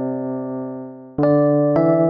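Background music on electric piano: a held chord fades away, then two new chords are struck in the second half.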